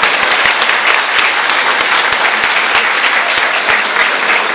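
Audience applauding steadily, many hands clapping in a hall.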